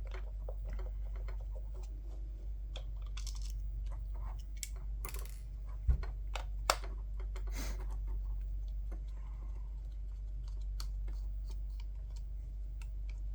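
Scattered light clicks and taps of a Turtle Beach gaming headset's plastic housing and a screwdriver being handled as the headset is opened up, with two sharper knocks about six seconds in, over a steady low hum.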